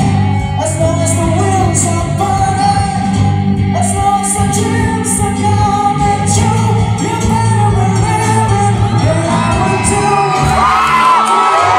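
Live rock band playing a slow rock song, with singing over bass, drums and cymbals. About ten seconds in, the crowd starts screaming and whooping over the music.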